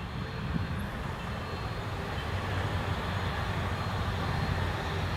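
Piston engine of a light aircraft running steadily, slowly growing louder.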